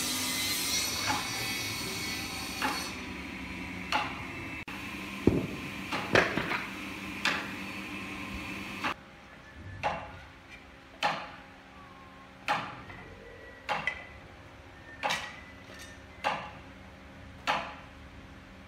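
Sharp knocks, irregular at first and then at a steady pace of about one every second and a quarter through the second half. A steady whirring noise runs underneath for the first few seconds.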